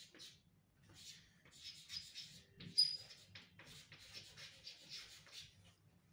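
Chalk writing on a blackboard: clusters of short scratchy strokes, with a brief high squeak of the chalk about three seconds in.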